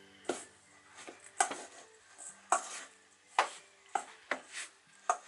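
Hands kneading and pressing wet flour dough in a stainless steel mixing bowl: a series of irregular knocks and dull thuds, roughly one to two a second, as the dough is worked against the bowl.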